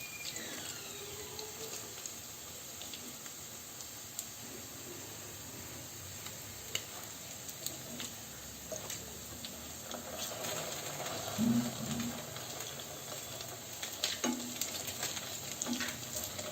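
Bread rolls stuffed with spiced potato frying in hot oil: a steady sizzle with scattered small pops and clicks.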